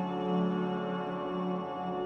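Ambient music: sustained, droning synthesizer tones with a gentle pulse in the low notes.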